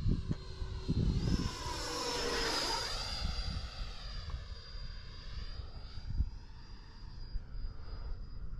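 The 64 mm electric ducted fan of an FMS Futura RC jet whines as the jet flies overhead. Its pitch swoops down and back up about two to three seconds in, over gusty wind rumble on the microphone.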